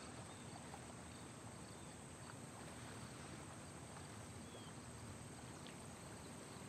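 Faint outdoor ambience: steady high insect chirring, with a few faint ticks.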